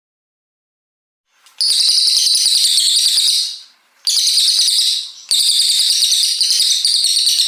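Brown cililin songbird singing loud, rapid, high-pitched chattering trills in three long bursts. The first starts about a second and a half in, after silence, and the last runs past the end.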